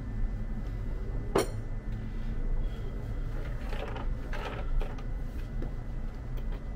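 Hand scraping and picking loose concrete chips and dust out of a freshly drilled hole in a concrete block wall: small gritty scrapes and clicks, with one sharp click about a second and a half in, over a low steady rumble. The hammer drill is not running.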